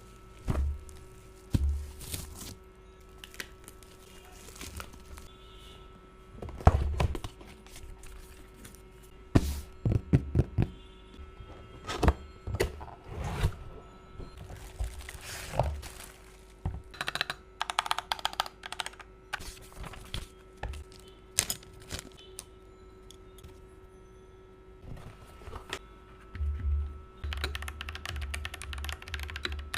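Unboxing handling: a series of separate thunks and knocks with some rustling in between. Near the end, rapid typing starts on the Monka A87 mechanical keyboard with Sea Salt tactile switches, and faint background music runs underneath.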